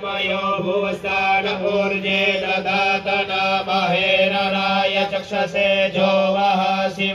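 Priests chanting Sanskrit Vedic mantras into microphones, amplified over a PA, in a continuous melodic recitation with a steady low hum underneath.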